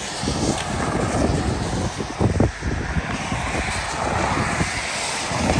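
A car driving across a wet road-rail crossing: tyres hissing on wet pavement, with a few short thumps about two seconds in as the wheels roll over the rails and crossing panels.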